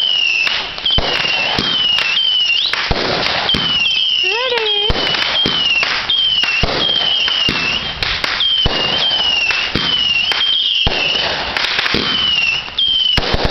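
Fireworks barrage: rapid bangs with short, high falling whistles repeating about once or twice a second over a continuous crackling hiss.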